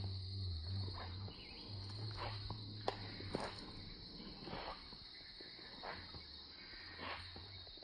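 Natural forest ambience: a steady, high-pitched drone of insects such as crickets, with scattered short clicks and knocks. A low hum comes and goes in the first half.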